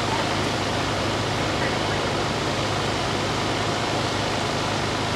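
Steady background noise with faint, indistinct voices.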